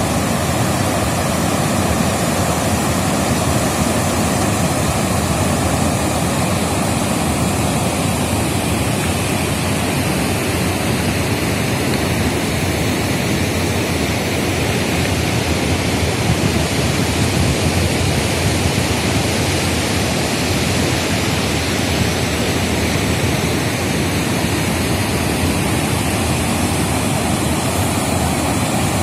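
The flooded Danube pouring through the open gates of a river weir: a steady, loud rush of white water that does not change.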